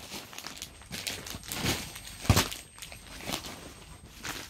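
Rustling and crinkling of cloth being handled, in irregular strokes, with a couple of louder crinkles about two seconds in.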